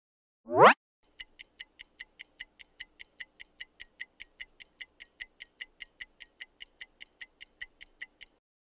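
Quiz countdown-timer sound effect: a short rising sweep about half a second in, then rapid clock ticks, about five a second, that stop shortly before the end.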